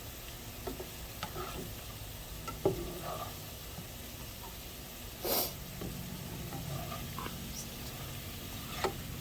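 Cubes of beef searing and sizzling in a hot pan while being stirred, with a few light knocks of the utensil against the pan and one louder, brief scrape about five seconds in.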